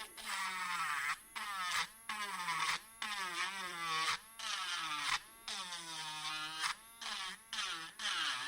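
Small electric sanding machine buzzing as resin is sanded off a jewelry piece. Its pitch sags and recovers again and again as the piece is pressed against the sander and eased off, in short spells with brief breaks between them.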